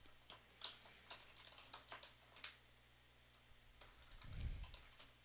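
Faint computer-keyboard typing: a scattered run of individual keystrokes over the first couple of seconds, then a pause. A soft, low thump comes about four seconds in.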